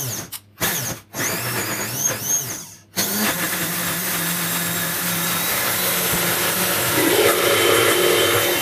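Countertop blender motor run in a few short bursts with brief stops in the first three seconds, then running continuously, blending tomatoes and soaked sun-dried tomatoes into a sauce.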